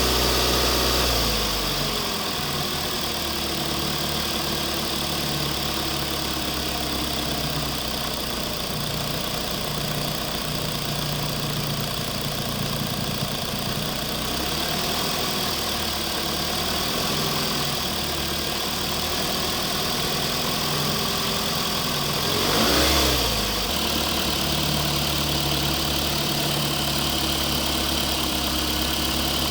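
RC construction machines running with a steady engine-like idle, while their motors whine up and down in pitch as they work. A brief louder swell with a sweeping pitch comes about three-quarters of the way through.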